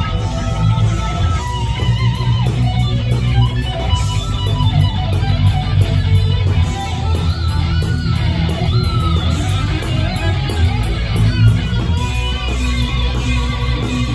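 Live heavy-metal band playing: an electric guitar lead line with wavering, bending notes over bass guitar and full band.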